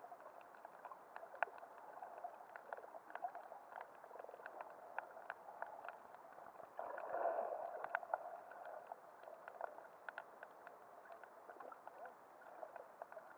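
Muffled underwater sound picked up by a camera held below the surface: a steady wash of water noise scattered with sharp clicks and crackles, swelling louder and gurgling for about a second, some seven seconds in.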